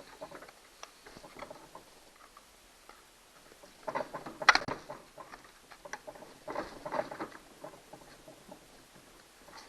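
Scattered clicks, scrapes and rattles of a Stihl 029 chainsaw's parts being handled during a teardown, coming in two bunches about four and seven seconds in, with one sharp click in the first.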